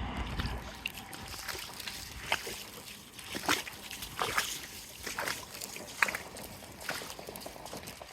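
Footsteps wading through a flooded path puddle about three inches deep, splashing and sloshing roughly once a second.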